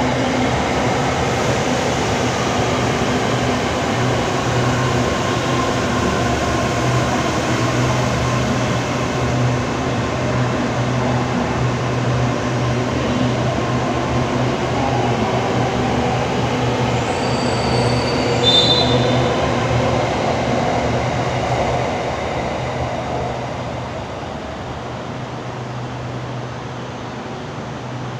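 Hitachi AT-100 electric multiple unit pulling out of the station, its traction motors whining and rising in pitch as it speeds up past. A brief high squeal comes near the loudest point, then the sound fades as the train leaves.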